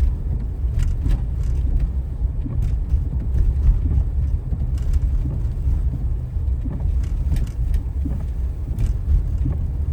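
Steady low road and engine rumble heard inside a car driving on a snow-covered road, with a few faint ticks scattered through it.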